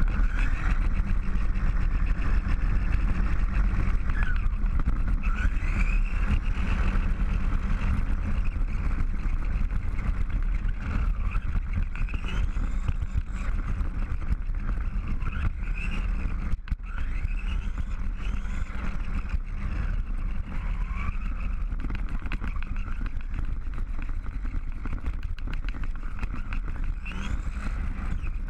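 XTM Rage RC car driving fast over asphalt, heard from a camera mounted on the car: a constant heavy rumble of tyres and chassis vibration, with a motor whine that rises and falls in pitch as the throttle changes. The sound briefly drops out a little past halfway.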